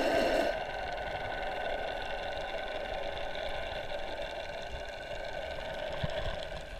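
Boat engine heard from underwater: a steady hum of several constant tones that drops in loudness about half a second in.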